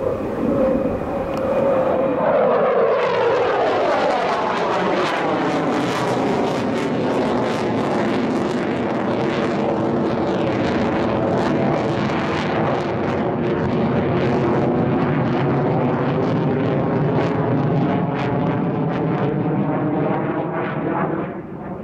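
Mitsubishi F-15J fighter's twin F100 turbofan engines running at high power during a display manoeuvre. The pitch drops over the first few seconds as the jet passes, then holds as a loud, rough, crackling jet noise, easing off near the end.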